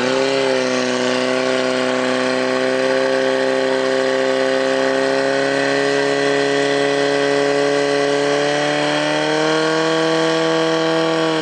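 Portable fire-sport pump engine run at high revs: its pitch climbs quickly right at the start as it is opened up to drive water through the hoses, then holds steady, edging slightly higher near the end.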